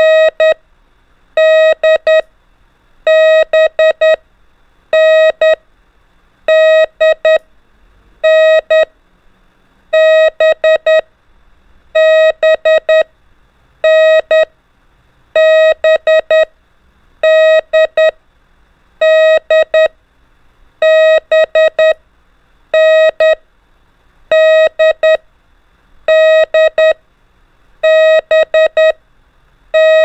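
Morse code (CW) practice tone keying the letters N, D and B: a steady mid-pitched beep sent as short dots and longer dashes, one letter group about every second, for the listener to decode by ear.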